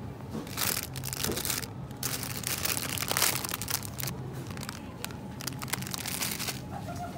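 Plastic produce bag of green beans crinkling in irregular bursts as it is grabbed off a shelf and handled into a shopping cart, over a low steady hum.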